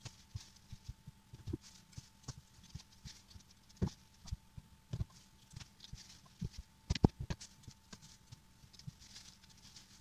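Irregular light clicks and taps of peel scraps being cut and dropped into a frying pan, one sharper knock about seven seconds in. A faint steady whine runs underneath.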